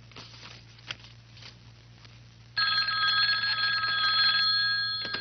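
Desk telephone ringing with one steady, unbroken electronic ring of about two and a half seconds, starting about halfway in. It cuts off with a click as the handset is lifted. Before it there is only faint rustling.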